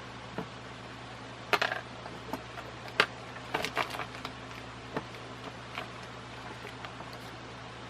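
Small metal fan-mounting hardware clinking and clicking as it is handled, a few sharp clinks at a time with short gaps between.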